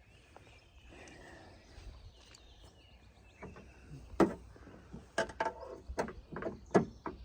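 A string of sharp, irregular clicks and light knocks from a car door handle and its fitting hardware being worked into place inside the door panel. The clicks start about four seconds in, after a faint quiet stretch.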